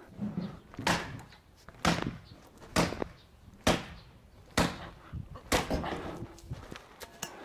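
A series of sharp knocks, about nine of them, coming roughly once a second at an even pace.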